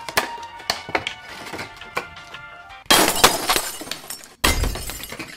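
Scissors snipping the clear cellophane wrap on a small cardboard mystery box, then the wrap crinkling loudly in two bursts, about three seconds in and again near the end. Background music plays underneath.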